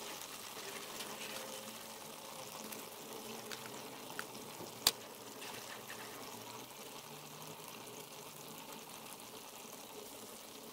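Thick chilli sauce bubbling and popping as it simmers in a cast-iron skillet, with one sharp click about five seconds in.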